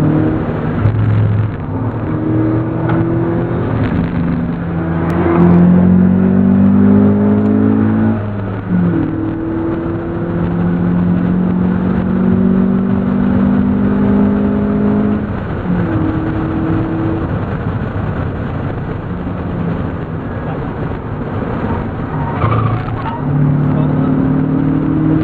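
Mazda MX-5 NB 1.6-litre four-cylinder engine, fitted with a BMC open air intake, heard from inside the cabin while driven hard on track. Its pitch climbs under acceleration and drops sharply about 8 and 15 seconds in, then rises again near the end.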